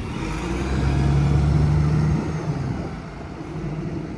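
Bus diesel engine running as the bus moves off, a steady low drone that swells about a second in and fades after about two more seconds; this is a bus with an engine fault that keeps losing its revs.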